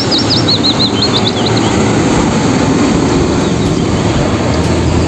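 Steady, loud rumbling noise, with a fast run of about ten short high chirps in the first two seconds.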